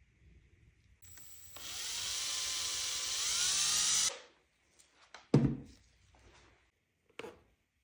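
Cordless drill spinning a paddle mixer through epoxy resin in a plastic cup for about three seconds, its motor whine rising in pitch as it speeds up partway through, then stopping abruptly. A loud knock follows about a second later, and a lighter knock near the end.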